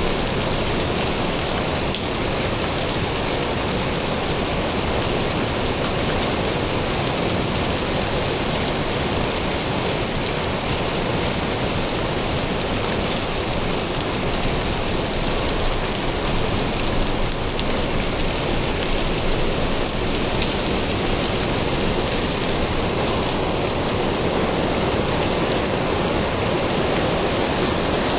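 Steady rain falling, a dense, even hiss without breaks.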